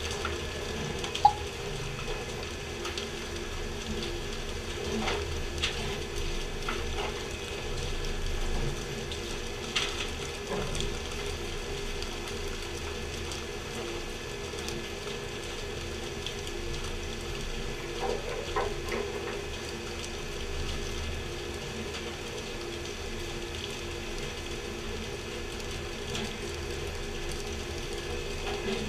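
Steady machinery hum and hiss of water spray on a pole-and-line tuna fishing boat, broken by occasional sharp knocks. The loudest knock comes about a second in.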